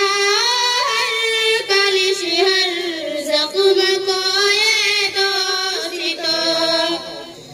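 Girls singing an Urdu tarana (patriotic song) into microphones, a single melodic line of long held, wavering notes, with no audible accompaniment; the phrase eases off near the end.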